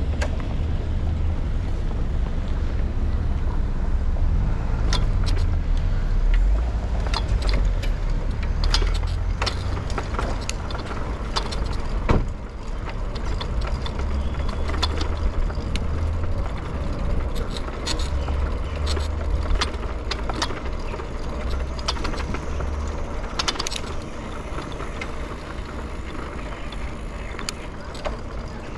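Ride noise of a bicycle moving through city streets: a steady low wind rumble on the microphone, with frequent sharp clicks and rattles. One louder knock comes about twelve seconds in.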